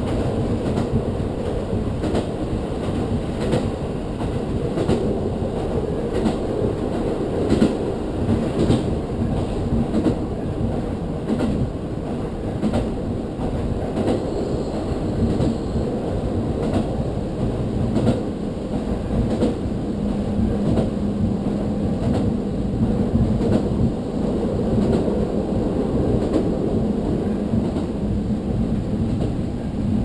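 Diesel railcar heard from inside the carriage while running at speed: a steady rumble of wheels on the rails with scattered clicks as the wheels cross rail joints. A steady low drone joins in about two-thirds of the way through.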